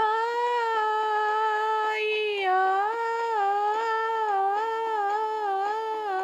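One high voice sings a long wordless line, holding notes with small ornamental turns and dips in pitch, in the style of a Balkan ethnic-pop vocal.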